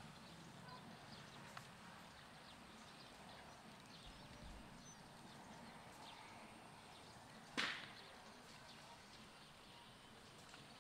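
Near silence: faint outdoor background hush, broken once by a short sharp crack about three quarters of the way through.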